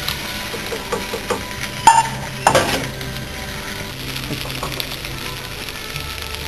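Floured chicken legs frying gently over low heat in a frying pan, with a soft, steady sizzle. Two sharp knocks about two seconds in, a utensil or pan knocking.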